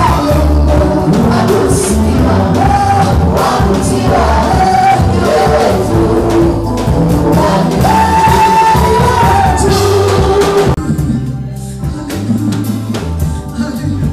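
Congregation singing a gospel worship song in unison over a live band, with electronic keyboard, bass and drums. A little over ten seconds in, the singing stops and the band plays on more quietly.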